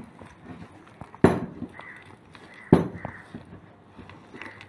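A hand mixes thick urad dal flour batter in a stainless steel bowl, with soft squishing and light ticks against the metal. Two loud knocks of the steel bowl come about a second and a half apart.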